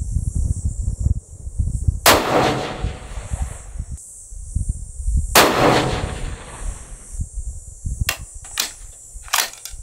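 Two shots from a scoped 5.56 AR-style rifle, about three seconds apart, each trailing off in a rolling echo. Insects buzz steadily throughout.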